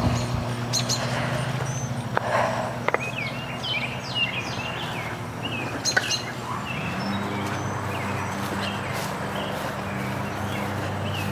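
Small birds chirping repeatedly, busiest in the middle of the stretch, over a steady low hum, with a few sharp knocks from digging with a shovel.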